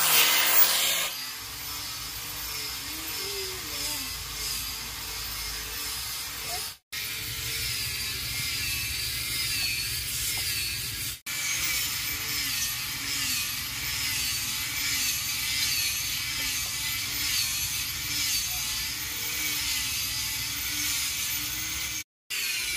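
Power tool working wood: about a second of louder, harsher cutting, then a steady motor whine whose pitch wavers. It is broken by abrupt short silences about 7 and 11 seconds in and again near the end.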